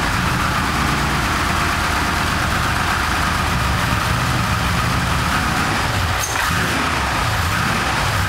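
Twin-turbocharged Ford modular V8 idling steadily on its first start-up.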